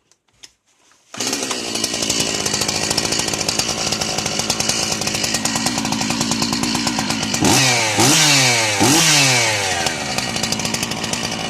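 Stihl MS 260 two-stroke chainsaw engine, without bar and chain, starts about a second in and idles steadily. It is then revved up and down three times near the end, with no metallic clanking, which shows the clank came from the clutch and not the engine.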